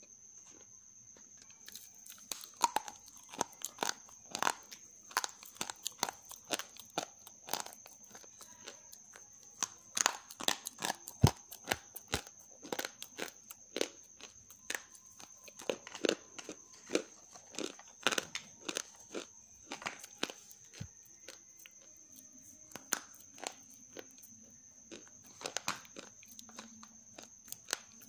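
Half-roasted grey clay crunching: a long, irregular run of sharp, dry crunches and crackles that begins about two seconds in.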